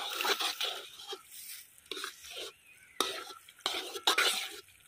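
Thick brownie batter of crushed Oreo biscuits, butter and milk being stirred and mixed by hand in a pot, in a run of uneven stirring strokes, a few of them sharper, as it is worked to cake-batter consistency.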